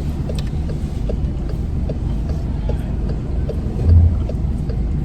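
Car cabin noise while driving: a steady low rumble of engine and tyres on the road, with faint evenly spaced light ticks and one low thump about four seconds in.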